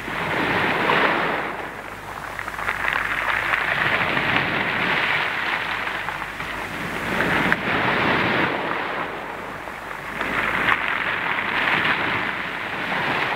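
Sea surf on a shingle beach, gargling in the pebbles. It is a noisy wash that surges and ebbs four times, about every three and a half seconds, heard through an old narrow-band radio recording.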